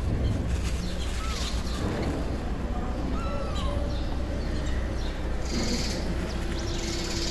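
A small kitten giving a few short, high mews while it is held and its eyes are wiped, over a steady low street rumble; paper tissue rustles near the end.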